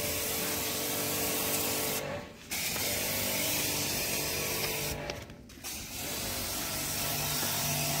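Electric car-wash pressure pump running, with the steady hiss of its spray gun jetting shampoo from a foam-bottle nozzle. The hum and spray stop briefly twice, about two seconds in and again around five seconds, then start up again.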